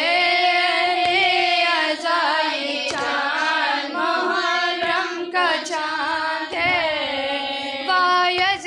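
A woman's voice chanting a noha, a Muharram lament, in long, drawn-out melodic phrases that bend up and down in pitch.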